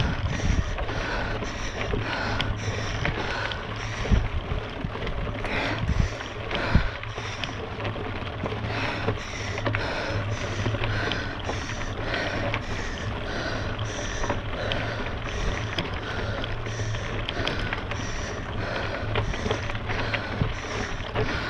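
Mountain bike being ridden uphill: drivetrain and tyre noise over rough ground, with a soft rhythmic pulse about twice a second.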